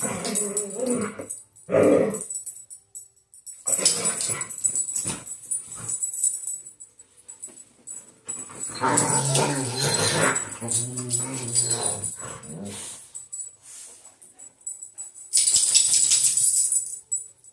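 Husky mix and pit bull-type dogs play-fighting: growling in irregular bursts with short gaps between, the longest growl running about 9 to 12 seconds in.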